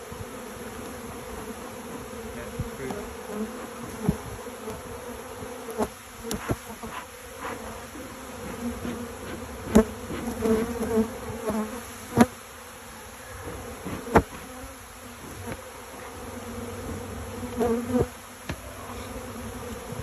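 Honeybees buzzing in a steady hum around an opened hive. Several sharp knocks cut through the hum, loudest around the middle.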